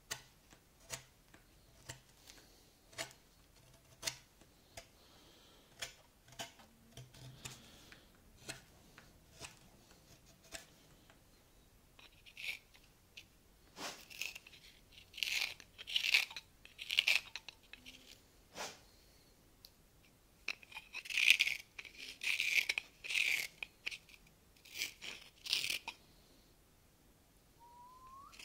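Knife cutting wood by hand: short, sharp paring cuts through the first half, then louder scraping strokes in clusters as a hook knife reams out the inside of a small wooden horn mouthpiece.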